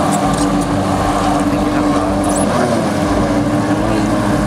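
Jet ski engines running at speed, a steady droning note that shifts slightly in pitch about halfway through.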